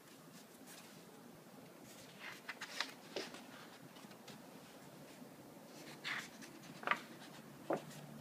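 Pages of a Moleskine watercolour sketchbook being turned by hand: short paper rustles and flicks, one cluster about two seconds in and another near the end.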